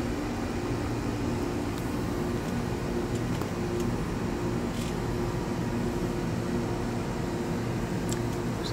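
Steady mechanical hum with a few faint, short clicks.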